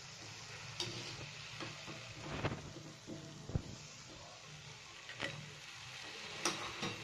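Balushahi dough rounds sizzling gently in ghee in a steel kadhai, frying slowly over a low flame, with a few sharp clinks of a steel spoon against the pan.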